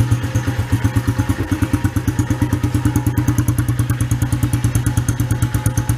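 Small air-cooled single-cylinder four-stroke engine of a Honda CRF dirt bike idling steadily, with an even fast beat of about twelve pulses a second.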